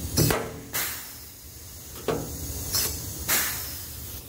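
Pneumatic rivet gun setting pop rivets into a steel cart: several quick trigger pulls, each a short, sharp hiss of air. The first pull seats the rivet and the second pulls it in and snaps it off.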